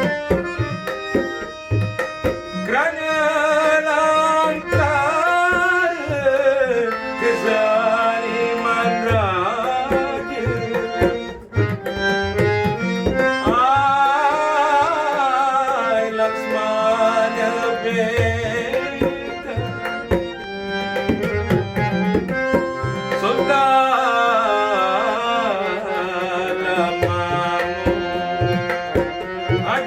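Malay ghazal music: a singer's ornamented, wavering melody over tabla drumming and a reedy accompaniment, with short instrumental breaks between sung phrases.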